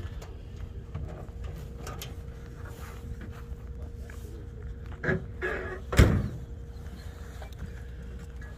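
Wind rumbling on the microphone, with a short clatter of knocks about five seconds in and one sharp knock, the loudest sound, about six seconds in.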